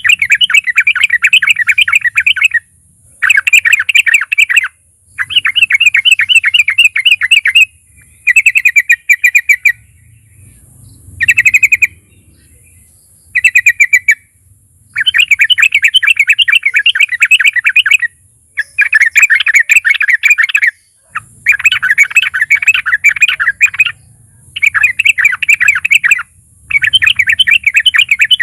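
Yellow-vented bulbul (trucukan) singing: repeated phrases of rapid, bubbling chattering notes, each a second or two long, with short pauses between them and a few shorter phrases in the middle.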